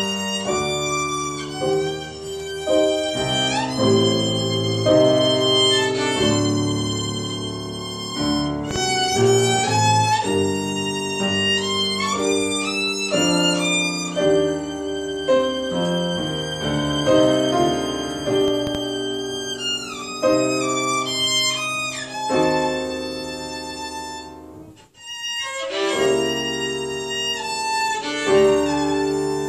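Solo violin playing a classical piece with piano accompaniment, mixing held bowed notes, pitch slides and quick runs, with a short break near the end.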